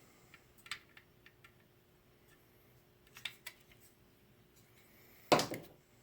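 A few faint clicks and taps from small connector pins and plastic parts being handled, with one louder short knock about five seconds in.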